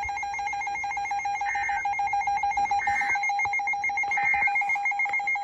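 Electronic alert tone beeping very rapidly at a steady pitch, with a fainter higher tone pulsing alongside it, like the alarm of an emergency alert receiver going off.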